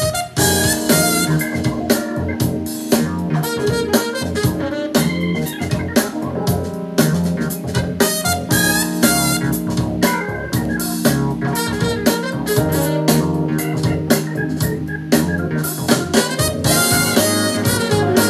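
Band music with drums and organ-like keyboards playing back through a KRK Rokit RP5 G2 studio monitor fitted with a new replacement woofer, as a listening test of the repair. There is a short break just after the start, where the music switches to another song.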